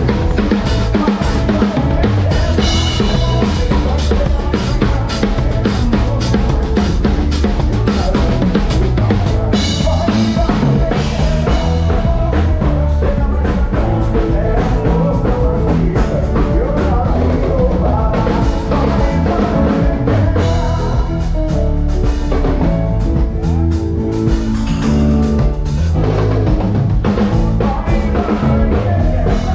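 A live drum kit with Zildjian cymbals played with the band during a stage soundcheck: steady kick and snare strokes to the fore, with pitched instruments such as keyboards underneath.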